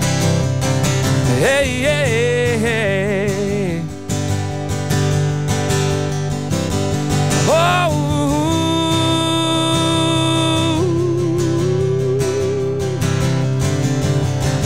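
Acoustic guitar strummed steadily under a man's singing voice: a wavering, bending sung phrase near the start, then a long held note in the middle before the voice slides lower.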